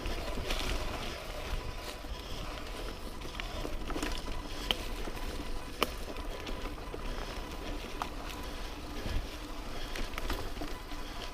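Mountain bike riding over a dirt trail: a steady low rumble with scattered rattles and two sharp clicks near the middle.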